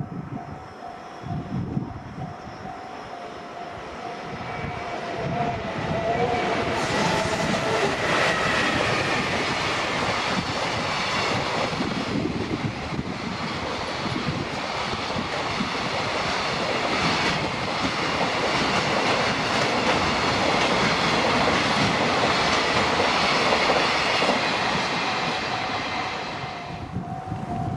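A JR Freight train passes close by at speed for over twenty seconds, building from about four seconds in and cutting off quite suddenly near the end as the last wagon clears. A level crossing warning alarm rings at the start, is buried under the train, and is heard again near the end.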